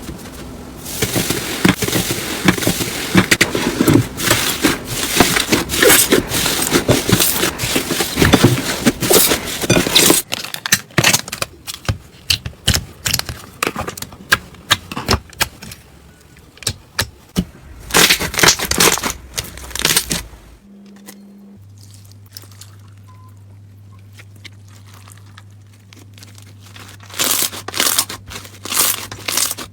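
Slime being squished and pulled by hand: dense crackling and popping, thinning out to scattered pops, then a quieter stretch with a steady low hum before the crackling starts again near the end.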